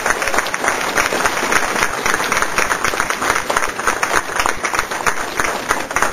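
Audience applauding, a dense, steady patter of many hands clapping that eases off slightly toward the end.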